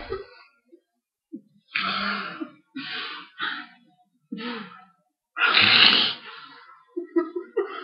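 A person's breathy vocal noises, about five short bursts with pauses between them. The last is the longest and loudest.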